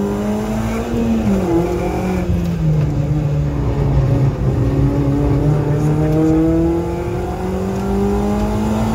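Renault Clio 3 RS Group N rally car's 2.0-litre four-cylinder engine, heard from inside the cabin at stage pace. The revs drop about a second in, with the shift from second to third gear, and drop again soon after. They then climb steadily under throttle through the rest.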